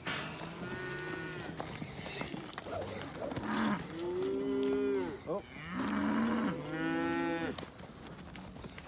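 Cattle mooing: about four long, drawn-out calls, one after another.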